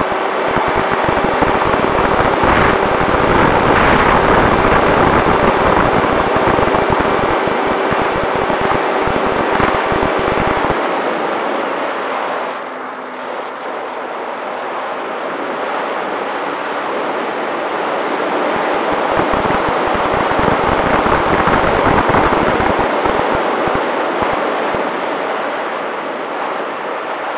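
Wind rushing and buffeting over the onboard action camera's microphone on a Volantex Ranger 1600 RC plane in flight, with the steady hum of its electric motor and propeller underneath. The buffeting eases off partway through, the hum settling lower, and the gusts build again later.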